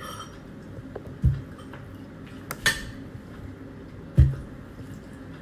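Tableware being handled on a table: two dull knocks of dishes set down, about a second in and about four seconds in, and a sharper clink of a spoon against a dish between them.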